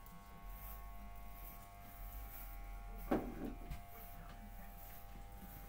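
Electric hair clippers buzzing steadily as they shave a man's head close around the ear. A sharp knock sounds about three seconds in.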